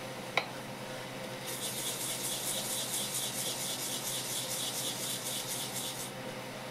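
A fresh wasabi root being rubbed in quick circles on a sharkskin wasabi grater, giving a fast, even, high-pitched rasping that starts about a second and a half in and stops near the end. A single sharp knock comes about half a second in.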